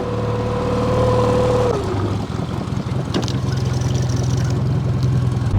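Small outboard motor running on a boat; its higher tone falls away about two seconds in as it is throttled back, and it runs on at a low, steady idle. A single light knock about three seconds in.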